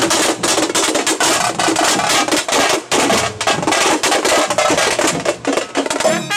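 Tamate frame drums beaten with sticks in a fast, continuous rhythm of sharp strokes.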